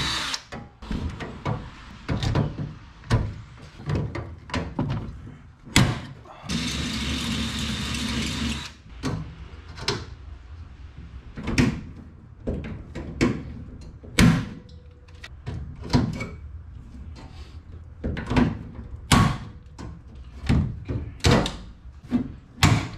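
Hand rivet gun setting rivets into aluminum braces: a long series of sharp clacks and snaps as the handles are squeezed and the mandrels break off. A cordless drill runs once for about two seconds, drilling through the aluminum, a quarter of the way in.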